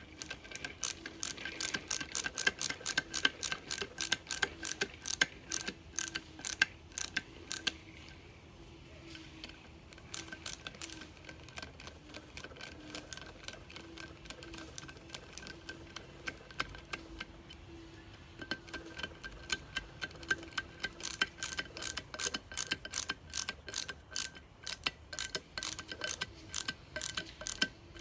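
A hand ratchet clicking in quick runs of many clicks, with pauses between runs, as screws are driven into a transmission valve body.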